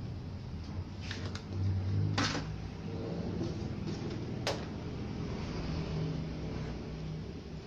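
Workbench handling sounds: a few light clicks and a short scrape as a hand tool and fingers knock against a CRT television's circuit board and plastic chassis, over a steady low hum.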